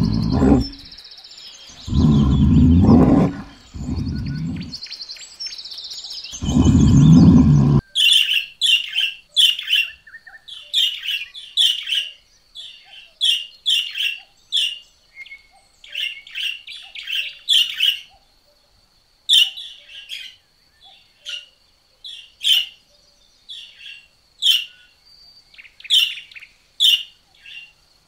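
Brown bear growling in long, loud bursts. About eight seconds in, it gives way to a northern cardinal calling with repeated short, sharp chips.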